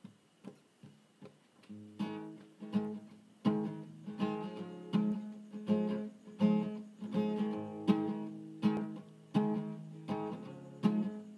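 Acoustic guitar strumming the instrumental intro of a song: a few soft strokes, then from about two seconds in a steady rhythm of full strummed chords, roughly one strong stroke every three-quarters of a second.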